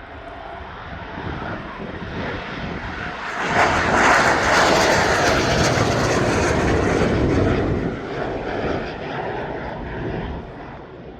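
Aircraft engine noise as a plane passes: it builds up, is loudest for a few seconds about four seconds in, then fades away near the end.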